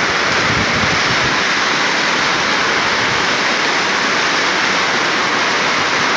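Heavy rain pouring down in a strong storm: a loud, steady hiss of downpour.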